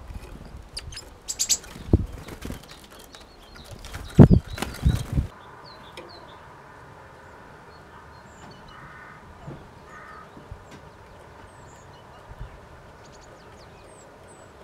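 Great tits coming and going at a wooden bird feeder: wing flaps, small clicks and a couple of loud thumps in the first five seconds, then much quieter with a few short, faint bird calls.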